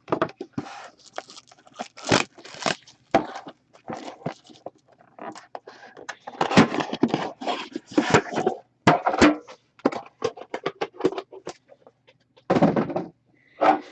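A sealed hockey card box being opened by hand: irregular tearing, crinkling and scraping of cardboard and plastic wrapping, with a few thunks.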